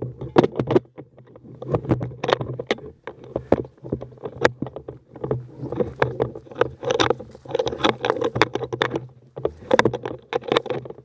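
Handling noise picked up by a camera mounted on an airsoft M4: irregular knocks, clicks and scuffs, several a second, as the rifle is carried and moved.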